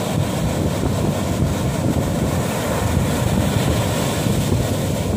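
Sea surf breaking and washing up the beach, with heavy wind buffeting the microphone in a constant low rumble.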